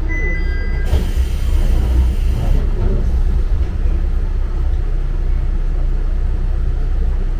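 Hojo Railway diesel railcar running, a steady low rumble throughout, with a hiss lasting under two seconds starting about a second in.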